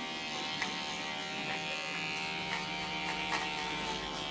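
Electric hair clippers buzzing steadily as they cut hair, with a few faint clicks.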